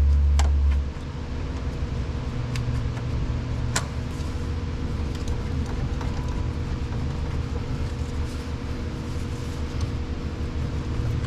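Steady low mechanical hum, with a few sharp metallic clicks from a wrench working a power steering pressure line fitting and a brief low rumble at the very start.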